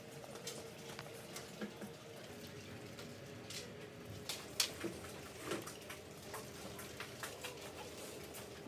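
Honeycomb charcoal briquettes catching light, giving off scattered faint irregular crackles and pops, over a faint steady hum.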